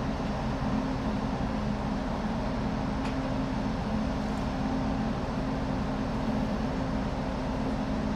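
Moored ship's machinery running: a steady low hum and drone with no change in pitch, as the ship is readied to leave port.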